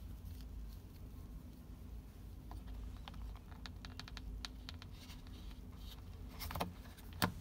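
Small clicks and light taps from a silicone watch strap and smartwatch case being handled as the strap is fitted, with two sharper clicks near the end, over a low steady hum.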